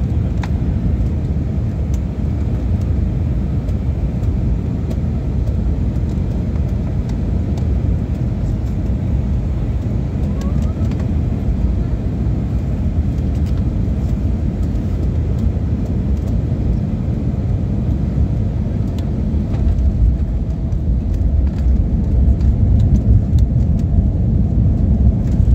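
Inside an airliner cabin during landing: a steady low rumble of engines and rushing air, growing louder about twenty seconds in as the plane rolls down the runway.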